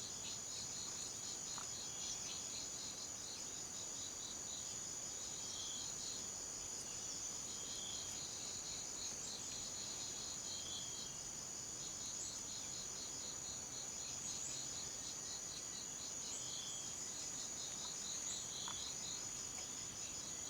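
Jungle insect chorus: a steady high-pitched insect drone layered with fast pulsing cricket-like trills, and short lower chirps repeating every couple of seconds.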